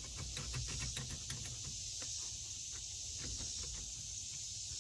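Steady, high-pitched chorus of insects in the woods, with faint light clicks and knocks as the old truck's steering wheel and column are worked by hand.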